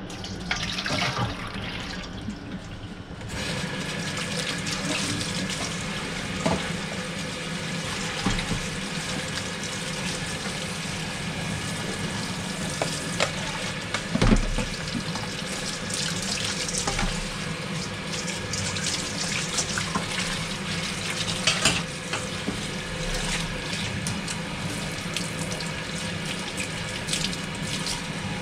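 Kitchen tap running into a stainless steel sink, water splashing over pickleweed being rinsed. A few sharp knocks sound over it; the loudest, about 14 seconds in, is a metal colander clanking against the bowl.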